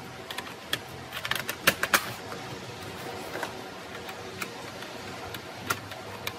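Irregular small clicks and taps of hand work on parts, with a quick cluster about a second and a half in, over a steady low hum.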